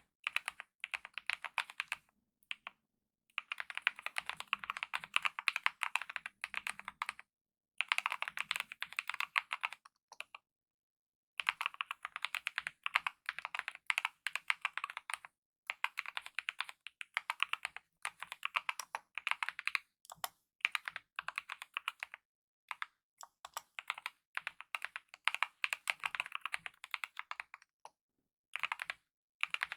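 Fast typing on a mechanical keyboard with lubed optical red linear switches and DSA-profile keycaps. The keystrokes come in rapid runs broken by silent pauses of about a second.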